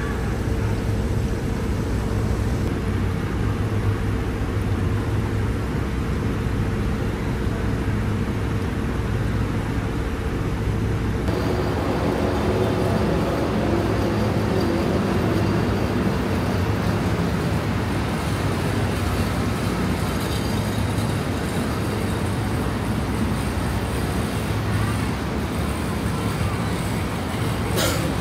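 Steady city road traffic: a continuous low rumble of passing cars. The sound changes character about eleven seconds in.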